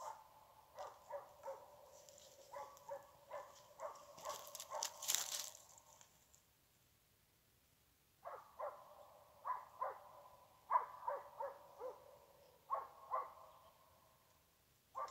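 Hunting dog barking at a wild boar, in two bouts of rapid barks with a pause of about two seconds between them. A loud burst of noise about four to five seconds in.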